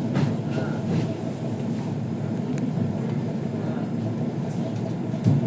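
Steady low rumble of travel heard from inside a moving vehicle, with a few faint clicks and a short louder knock near the end.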